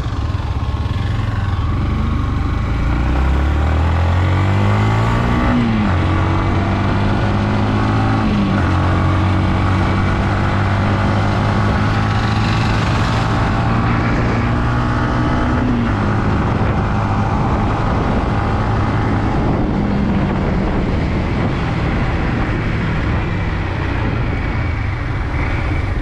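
Yamaha MT-15 V2's single-cylinder engine pulling away. Revs rise and drop back at upshifts about six and eight and a half seconds in, then it settles into a steady cruise with another shift near sixteen seconds.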